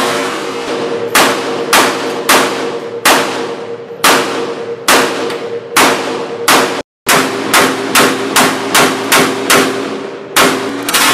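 About twenty semi-automatic shots from an AK-pattern firearm, fired at a quick, uneven pace of roughly two a second, with a brief break about halfway.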